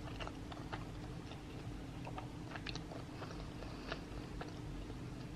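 Faint chewing of sushi close to the microphone, with many small scattered clicks over a faint steady hum.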